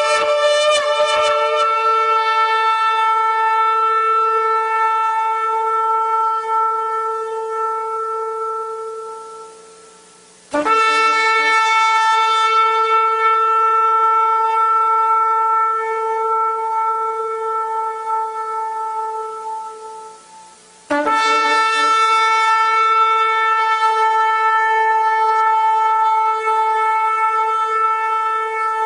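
Long, steady horn blasts held on one pitch: three notes of about ten seconds each, each fading away and the next starting suddenly.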